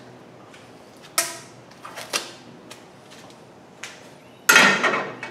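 Sharp clicks and knocks of hand tools and metal parts being handled while fitting radiator hoses: a few single clicks, then a louder rattling clatter about four and a half seconds in.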